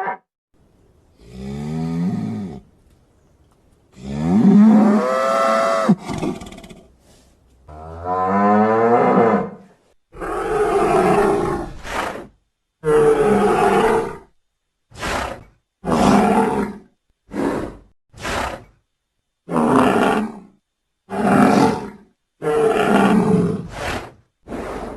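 Aurochs sound effects: a string of separate deep, cattle-like bellows and roars. The first few calls are long, about two seconds each, with sweeping pitch. The later ones are shorter and come in quicker succession.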